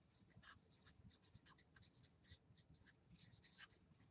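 Felt-tip marker writing on a tabletop easel pad: faint, quick scratchy strokes as a word is written out letter by letter.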